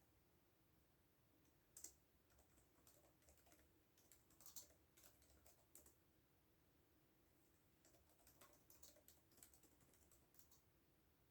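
Faint typing on a computer keyboard: two runs of quick key clicks with a pause of about two seconds between them.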